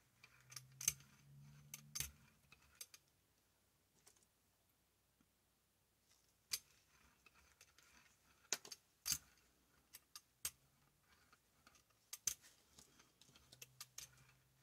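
Large hand brayer rolled over black paint on a gel printing plate: a faint low rumble while it rolls, with scattered sharp clicks and ticks. There is a near-silent stretch of a few seconds in the middle.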